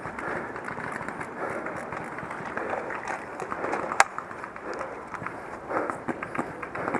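Footsteps and rustling of clothing and gear while moving on foot, with one sharp crack about four seconds in.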